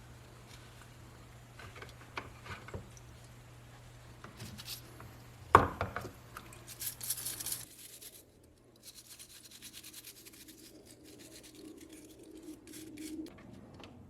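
Workshop handling noises: scattered taps and scrapes with one sharp knock about five and a half seconds in, then a run of quick clicks and scratching.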